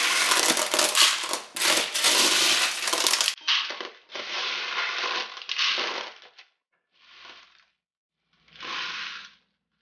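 Dry elbow macaroni and dried beans rattling as a metal spoon scoops and pours them into a plastic toy dump truck's bed. A dense rattle for about three and a half seconds, then several shorter rattles with gaps between them, the last around nine seconds in.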